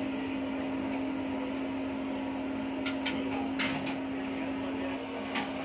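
A steady machine hum with a faint hiss underneath, and a few light knocks about three to four seconds in and again near the end as tomatoes are handled in a steel bowl.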